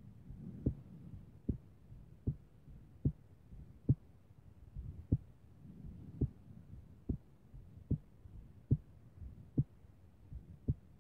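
A person's heartbeat: low thumps a little more than once a second, with uneven gaps and a few small extra beats. The uploader calls the rhythm irregular but strong.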